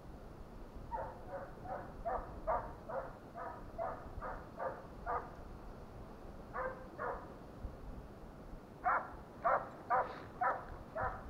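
A scent hound baying in runs of repeated barks, about two a second, with a short pause in the middle. It is giving voice on the trail of a hare it has started.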